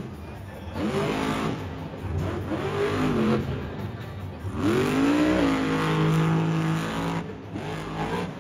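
Grave Digger monster truck's supercharged V8 engine revving hard in surges, its pitch climbing and falling about three times in the first half, then held at high revs for a couple of seconds before dropping back.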